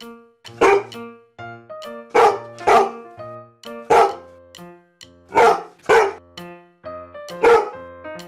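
A dog barking, about seven short barks, some single and some in quick pairs, over background music.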